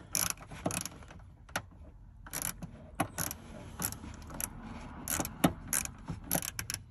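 Hand ratchet clicking in short, irregular strokes while a screw is turned into a rear speaker mount.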